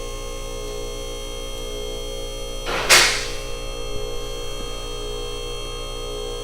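Steady hum made of several steady tones. About three seconds in, a short hiss from a hand spray bottle squirting slip solution during paint protection film installation.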